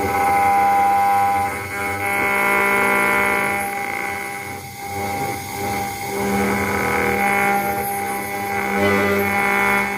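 CNC router spindle cutting into a brass plate, a steady multi-pitched whine whose loudness swells and dips every second or two as the cutter moves through the metal.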